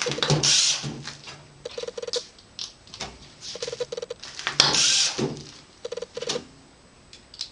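Foil-faced bubble reflective insulation crinkling and rustling as it is handled, with three short bursts of a drill's whine as self-drilling screws are driven through the fastener discs.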